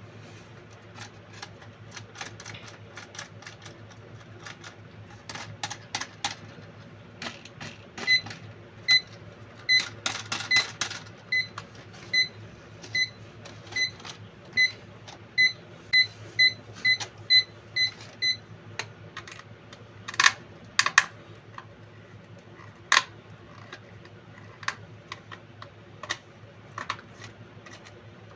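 Short electronic beeps repeating about once or twice a second for about ten seconds, mixed with irregular sharp clicks and knocks of handling, over a low steady hum.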